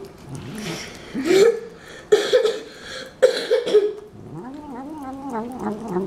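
Domestic cat making short throaty vocal sounds while eating wet food: three or four brief bursts, then a longer wavering murmur from about four seconds in.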